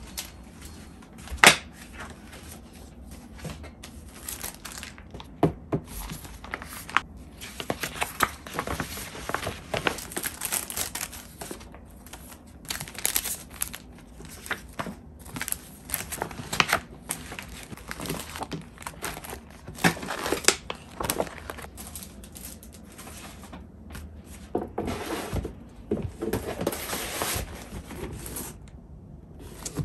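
Paper cards, letters and envelopes being handled and sorted by hand: rustling and flapping of paper with many small taps and clicks, and one sharp knock about a second and a half in.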